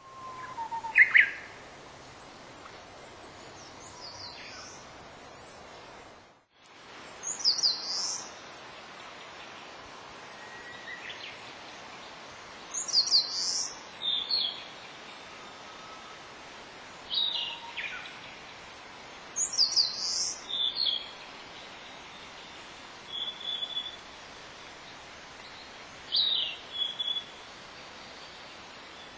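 Small songbirds singing in woodland, among them a Japanese bush warbler: a short high song phrase repeats about every six seconds, over a steady faint hiss.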